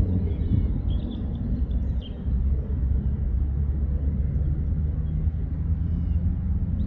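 Distant military jet engines running on the runway: a steady low rumble, with faint bird chirps above it.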